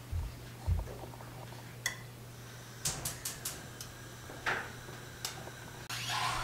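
Scattered light taps and crackles, with a quick cluster of clicks about three seconds in, as a crisp waffle round is rolled by hand around a paper cone form and pressed into an ice-cream cone. A low steady hum runs underneath.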